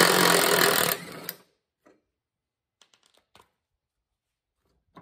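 Cordless impact wrench hammering on a mower-deck spindle's pulley nut to take it off, a rapid rattling for about a second, then one short final burst. A few faint clicks follow.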